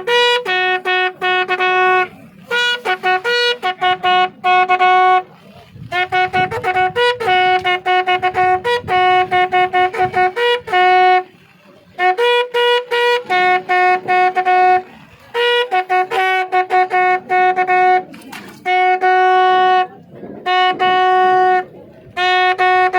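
A lone bugle sounding a slow ceremonial call of long held notes on two alternating pitches, with short leading notes and brief breaks between phrases. This is the funeral bugle call given as part of the state military honours.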